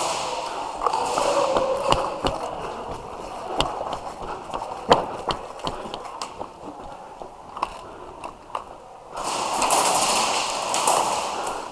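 Scattered sharp clicks and knocks over a rustling hiss, with a louder rush of rustling from about nine seconds in.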